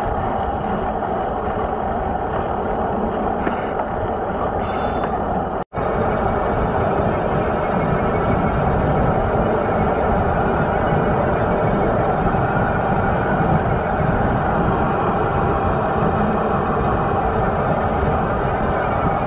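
Steady rush of wind across a bicycle-mounted camera's microphone while riding along a road, with tyre noise on the asphalt. The sound drops out for an instant about six seconds in.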